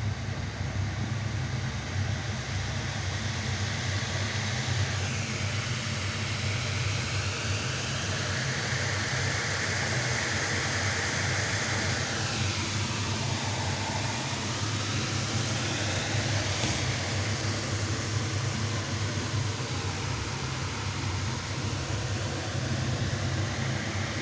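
A train running, with a steady low rumble throughout. A fainter whine slides down and back up a few times in the middle.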